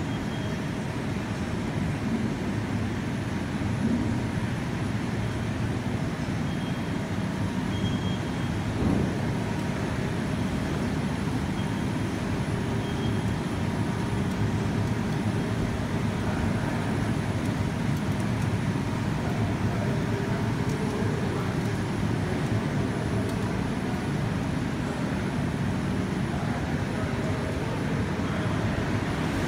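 Steady mechanical hum and rumble of an automatic fresh pho noodle production line running, its motors driving the mesh conveyor belts and rollers, with a single knock about nine seconds in.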